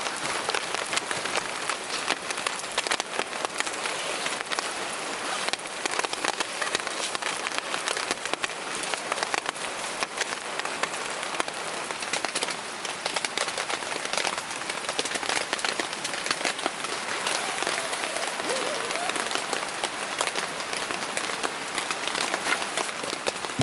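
Heavy rain falling steadily, a dense spray of fine drop hits on a surface.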